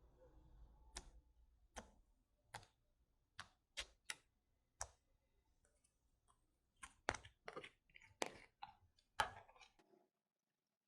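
Slime being played with by hand: a string of sharp, irregular clicks and pops, coming closer together in the second half and stopping about a second before the end.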